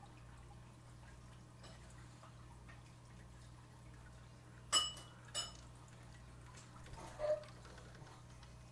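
Steady low hum of an aquarium air pump driving bubble streams in the tank. About five seconds in come two sharp clinks, each with a short ring, and a brief higher sound follows near seven seconds.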